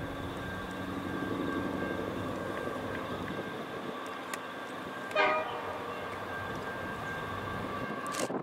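Distant diesel train approaching over a steady hum, and about five seconds in the locomotive gives one short horn toot.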